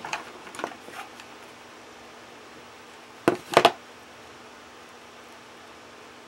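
Hands handling a lace-covered cardboard tube with a few soft rustles and clicks, then a quick clatter of three or four knocks about three and a half seconds in as a hot glue gun is set down on the tabletop.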